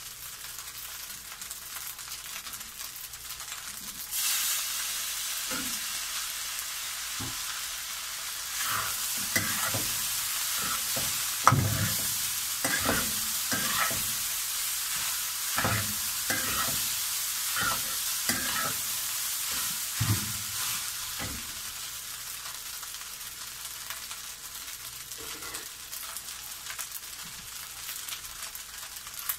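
Fried rice sizzling in a hot wok, the sizzle growing louder about four seconds in. From about 8 to 21 s the rice is stirred with a metal spatula, which knocks and scrapes against the wok many times, then only the steady sizzle remains.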